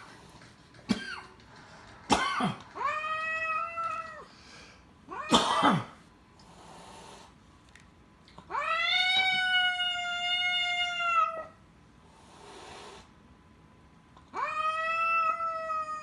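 Cats in a standoff: three long, steady, high-pitched yowls of two to three seconds each, with sharp hisses and spits between them. The hissing is the Abyssinian's warning to the orange tabby.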